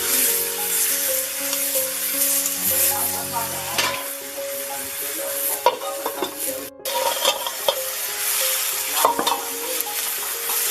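Close-miked mukbang eating sounds: rice and fish curry being mixed and eaten, with scattered wet clicks over a steady hiss, and soft background music with held notes underneath.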